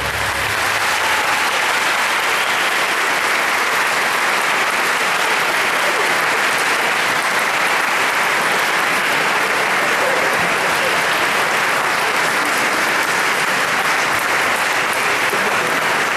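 Audience applauding steadily, with dense clapping, right after the music stops.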